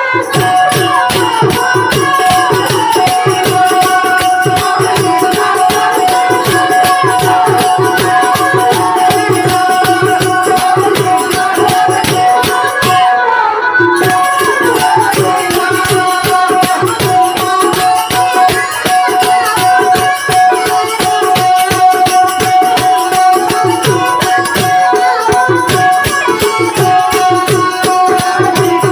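Indian folk-style music: fast rattling percussion and drumming under a steady held drone note, with a wavering melody line over it.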